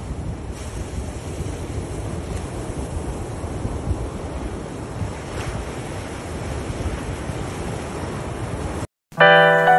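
Ocean surf washing on a beach with wind rumbling on the microphone, steady for about nine seconds before it cuts off. Piano music starts just before the end.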